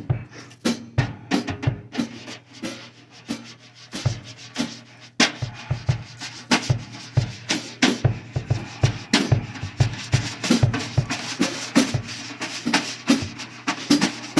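Drum kit playing a beat: kick drum thuds under snare and cymbal hits, softer for a couple of seconds before a hard hit about five seconds in.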